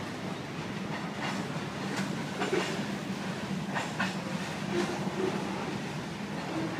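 Freight train of covered cement hopper cars rolling past on a steel truss bridge: a steady low rumble with sharp irregular wheel clicks over the rail joints.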